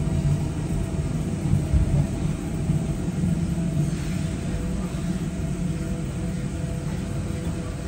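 W8-class tram running along the track, heard from inside its wooden saloon: a steady low rumble from the wheels and running gear, with a faint steady hum above it.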